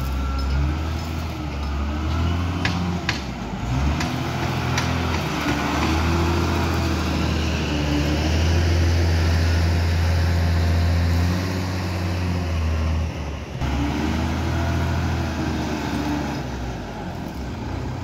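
Diesel engine of a wheel loader running and revving up and down as it works, with a few sharp metallic clanks in the first five seconds.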